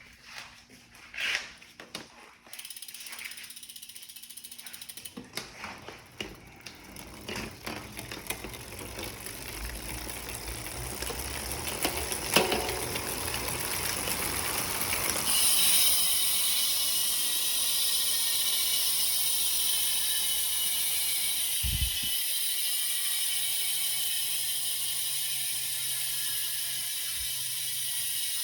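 Ryet rear freehub with six pawls freewheeling: a few single clicks, then a rapid pawl ratchet buzz that builds up as the wheel spins faster and then runs on steadily, slowly dropping in pitch as the wheel coasts down.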